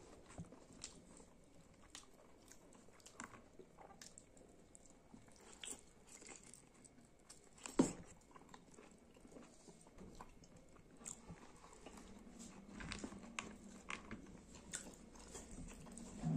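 A person eating curried skin with rice by hand: quiet chewing and biting with scattered small mouth clicks, and one sharper click about eight seconds in.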